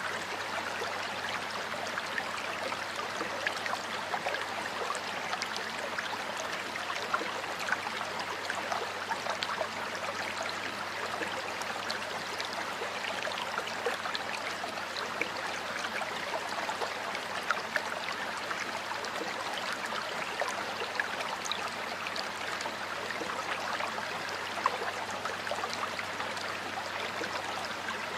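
Water of a stream flowing steadily over its bed, a constant rush of water with many small splashes through it.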